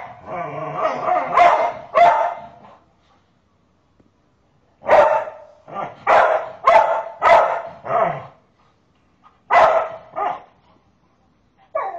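A dog barking: a drawn-out run of calls in the first couple of seconds, then after a short pause a quick string of about six barks, two more, and a last one near the end.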